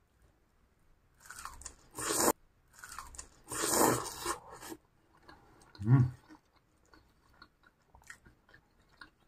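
Biting into and chewing fried cilor, skewered starch balls in a fried egg coating, with two loud crunching bites in the first half. About six seconds in there is a short low vocal sound from the eater, the loudest moment.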